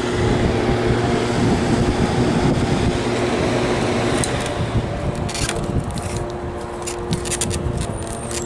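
Zenith 5000 BTU window air conditioner running on fan only, a steady hum and rush of air with the compressor not kicking on, held off by a thermostat that reads the air as too cold. About four seconds in the sound thins a little, and scattered light clicks follow.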